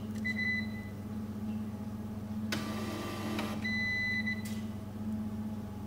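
Bizerba scale's label printer running briefly for about a second, between two short beeps, over a steady mains hum. The beeps are the scale's alarm: the new label roll is not sitting in its groove under the paper sensor, so the printer won't feed.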